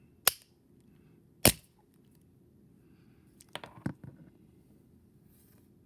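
Sharp clicks of a small pry tool against the face cap of a car door lock cylinder as it is worked to pry the cap up: two single clicks, the second the loudest, then a quick cluster of clicks about three and a half seconds in.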